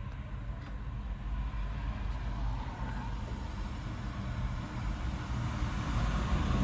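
Mahindra Jeeto's diesel engine idling steadily, a low even rumble.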